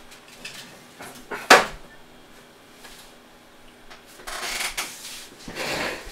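Handling noises as a 3D-printed plastic storage block loaded with a toothbrush, a brush and small tools is placed inside a 3D printer. A sharp knock comes about a second and a half in, then two short spells of rustling and clatter near the end.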